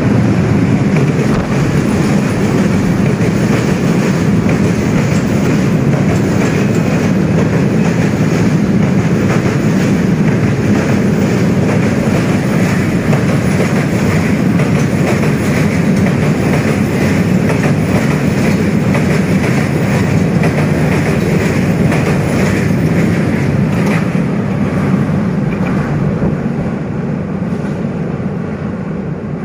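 Passenger train passing close over a railway bridge: a loud, steady rumble of wheels on rails with clatter from the rail joints, easing slightly near the end.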